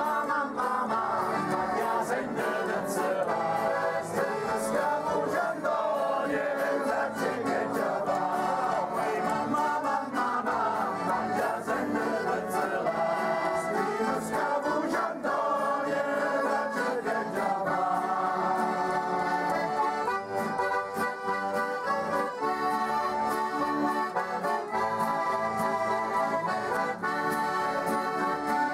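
A group of men singing a folk song together in unison, accompanied by a small diatonic button accordion (organetto). About halfway through the singing drops away and the accordion carries on alone.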